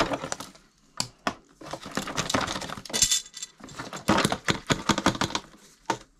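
Plastic clicks, knocks and clattering from handling a Bissell PowerForce upright vacuum and a vertical blind wand worked at its clogged hose port, with a short scraping rasp about three seconds in.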